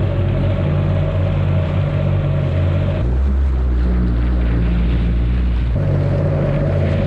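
Stand-up jet ski engine running steadily at low speed, cruising on calm water. Between about three and six seconds in, the drone drops to a deeper, steadier tone, then goes back to its first sound.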